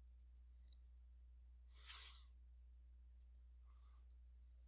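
Near silence over a steady low hum, with a few faint computer mouse clicks and a brief soft breath-like hiss about two seconds in.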